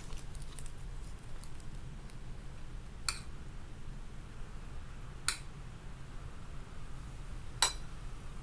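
A metal spoon clinking sharply against a ceramic bowl three times, a couple of seconds apart, as filling is scooped onto lettuce leaves; the last clink is the loudest. A low steady hum runs underneath.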